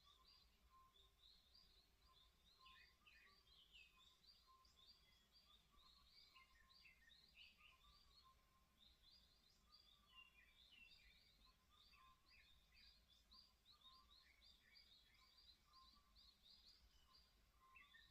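Faint morning birdsong: small birds chirping and twittering in quick, short, high notes without a break.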